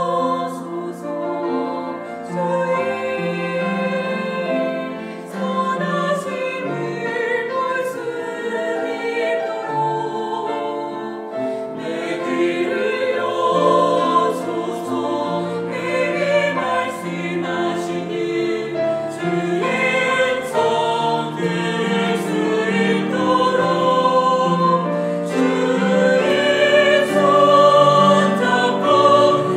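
A small mixed choir of men and women singing a Korean worship song in Korean, with instrumental accompaniment.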